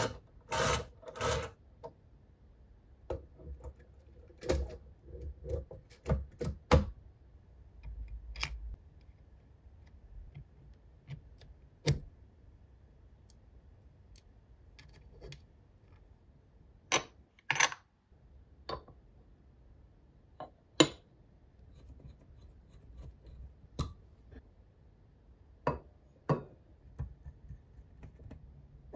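Small metal parts of a full-metal model turbofan engine clicking, tapping and clinking as they are fitted by hand, with tweezers and with a screwdriver and pliers. The sounds are scattered sharp clicks: a cluster at the start, more over the next several seconds, then single clicks with quiet gaps.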